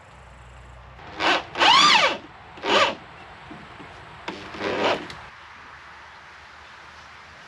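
Four scraping strokes of a hand tool working wood, each with a squeal that rises and falls in pitch. The second stroke is the longest and loudest.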